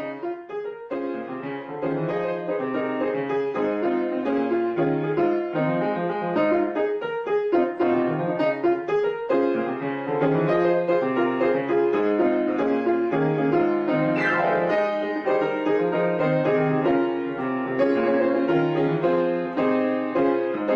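Background piano music, a lively run of keyboard notes.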